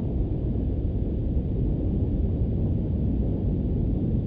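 Deep, steady rumble of the Space Shuttle Challenger's rockets heard from the ground, even and continuous with no single sharp bang.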